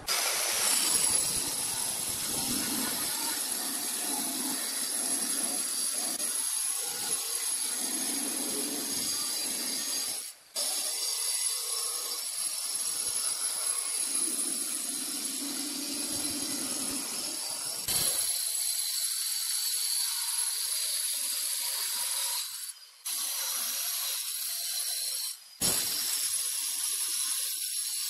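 Handheld electric stone cutter with a diamond blade wet-cutting a granite countertop slab: a steady high-pitched motor and blade whine with grinding, stopping briefly three times.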